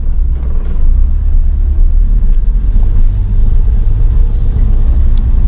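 Inside a moving car's cabin: a steady, loud low rumble of engine and road noise while driving.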